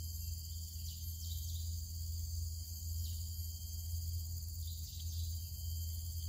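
Steady high-pitched insect chorus from the surrounding vegetation, over a low steady hum.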